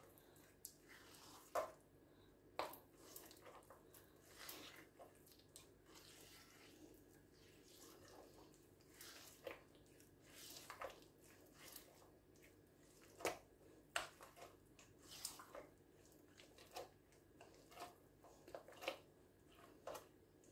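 Faint, irregular squelching and soft clicks of a bare hand kneading and squeezing a soft butter mixture in a glazed clay bowl.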